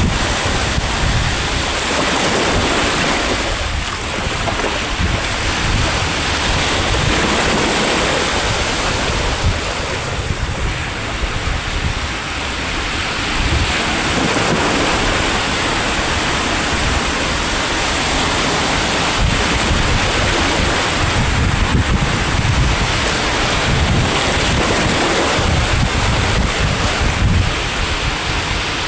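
Sea waves breaking and washing on the shore in a steady roar, with wind buffeting the microphone in low gusts.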